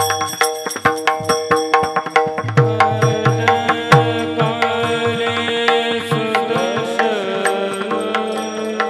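Kirtan music in the Bhairavi chaal: a hand drum plays rhythmic strokes with deep falling bass notes over a steady drone. From about two and a half seconds a long held melodic line enters and bends through ornamented glides.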